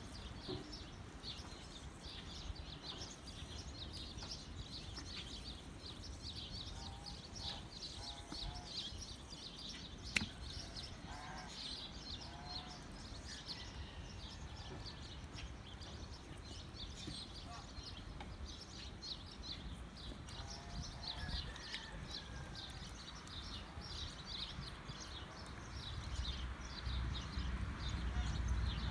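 Many small birds chirping continuously in the background, with a few short calls in the middle and a single sharp click about ten seconds in. A low rumble underlies it and grows louder near the end.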